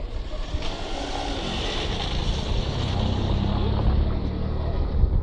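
A motor vehicle's engine running close by, its low hum growing stronger about halfway through, over a steady hiss.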